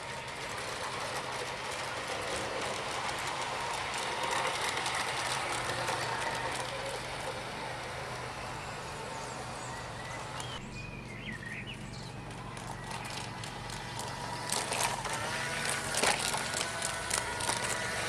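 LGB garden-scale model trains running on outdoor track, with a steady low hum, and a run of sharp clicks in the last few seconds as wheels pass over the rail joints.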